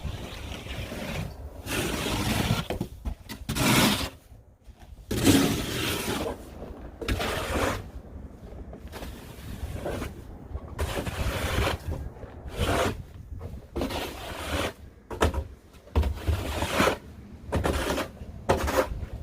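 Snow shovel scraping and pushing through deep snow, about a dozen irregular strokes of a second or so each.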